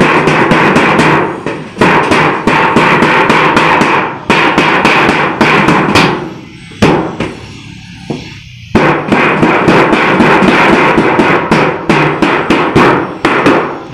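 Steel pliers rubbing and tapping rapidly along the inside corner seam of a sheet-metal box gutter, a dense metallic clatter. It stops briefly twice and pauses for about two seconds near the middle.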